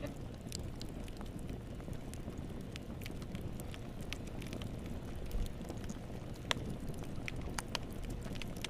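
Wood fire burning in a fireplace: a steady low rumble of flames with irregular sharp crackles and pops, the loudest pop about six and a half seconds in.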